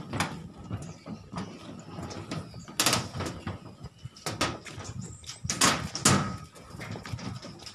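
Footsteps on the deck of a suspension footbridge: a run of uneven knocks and rattles, some sharper and louder than others.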